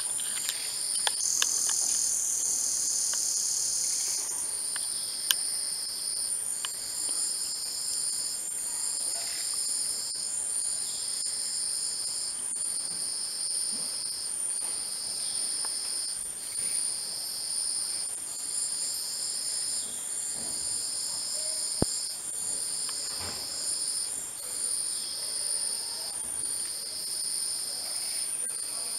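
Rainforest insects calling. A steady high-pitched whine runs under a second insect's long, even calls, repeated about every one and a half to two seconds. A sharp click sounds once near the end.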